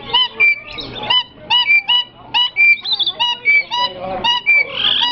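A parrot calling loudly and persistently at close range: a rapid run of short, nasal honking notes, about three a second, each rising then falling in pitch.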